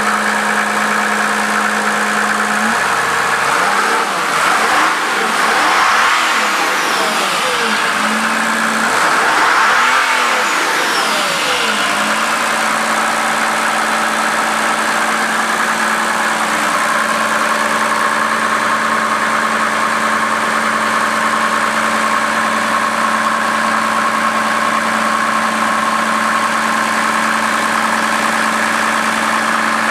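Mercedes-Benz OM603 straight-six turbodiesel with a Holset turbocharger idling, then revved up and back down twice, about three and nine seconds in. A high whine rises and falls with each rev. It then settles back to a steady idle.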